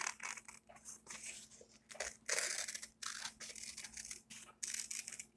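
Scissors cutting through a sheet of brown paper: a run of irregular short snips and paper rustles.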